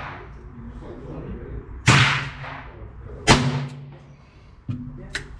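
Two shots from a .22 rimfire revolver, about a second and a half apart, each with a short echo, followed near the end by a fainter crack and a light click.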